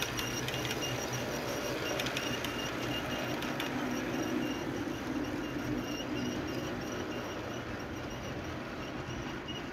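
HO-scale model train rolling past on layout track: a steady rolling rumble from the diesel locomotive and its wagons, with a light, regular ticking from the running gear through the first part.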